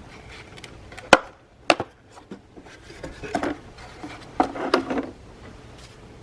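Two sharp clacks about half a second apart, then two short bursts of clattering knocks, from tools and wheel parts being handled during a wheel change.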